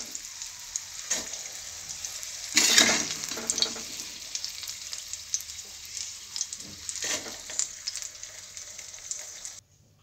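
Hot mustard oil with whole spices and garlic sizzling in a metal kadhai, while a metal spoon scrapes the tempering out in several strokes, the loudest about two and a half seconds in. The sound cuts off near the end.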